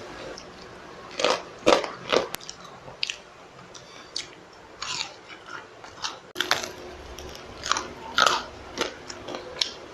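A person biting into and chewing crunchy food: a series of sharp, short crunches, the loudest three close together in the second second, with more crunches scattered through the rest.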